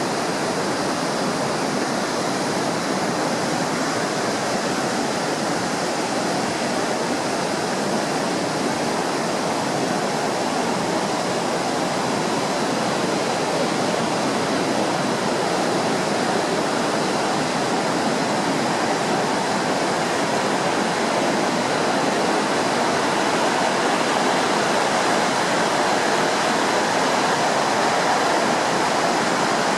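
Heavy surf on a sea beach: a steady, dense rush of breaking waves with no single crash standing out, growing slightly louder in the second half. The sea is high with swell from distant typhoons.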